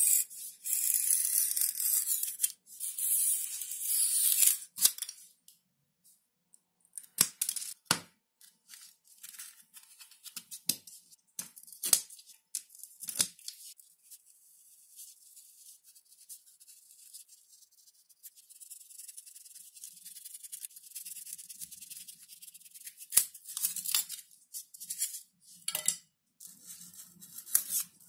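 Craft cutting work: a few seconds of continuous scratchy cutting strokes, then scattered sharp clicks and short scrapes with quiet gaps between them, and more scraping near the end.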